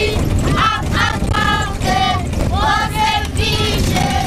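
A group of schoolchildren singing together in high voices, over the steady low rumble of the bus they are riding in.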